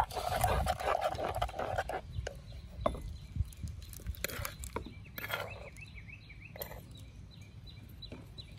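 A spoon stirring and scraping a wet chili-lime dipping sauce in a wooden mortar, then scattered clicks and wet splashes as the sauce is poured out into a bowl.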